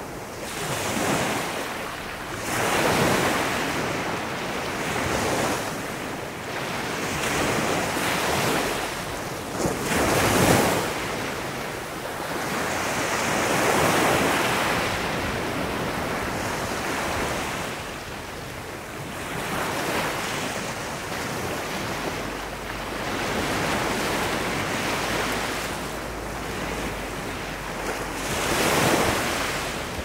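Small sea waves breaking and washing up a sandy shore among rocks, the surf swelling and fading every few seconds, loudest about ten seconds in.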